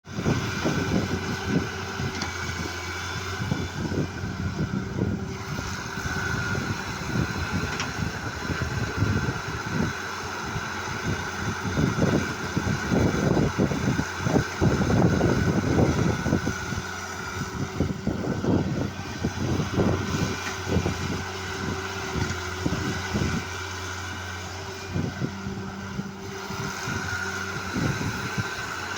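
A heavy machine's engine running steadily under work, with irregular knocks and rattles, heaviest in the middle.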